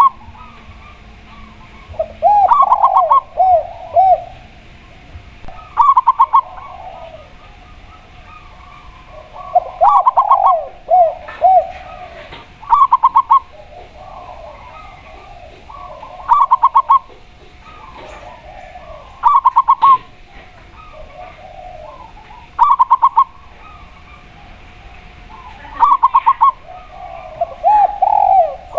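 Spotted dove and zebra dove cooing in turn. Short bursts of rapid, stuttering higher notes come every few seconds, and three times a lower phrase of arched, rounded coos is heard.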